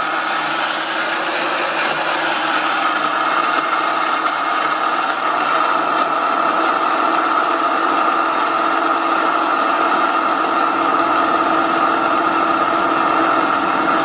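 Laralov electric blade grinder with four steel blades in a stainless steel bowl, running on its automatic mode one and chopping whole coffee beans into grounds. A steady, high-pitched motor whine over the noise of the beans, harsher in the first couple of seconds.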